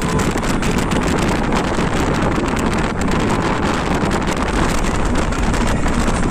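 Loud wind rushing and buffeting on the microphone of a phone held at a car window while the car drives along, with road and engine noise underneath.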